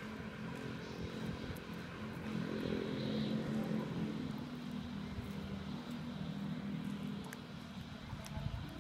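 A steady engine drone that swells about three seconds in and eases off near the end, with faint small clicks of a kitten chewing fried chicken.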